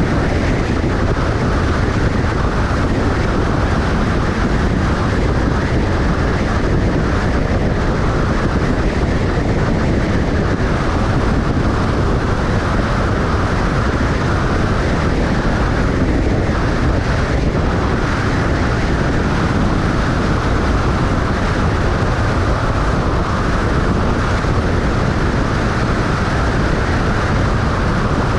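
Steady road noise of a moving vehicle, an even rumble with no breaks or changes.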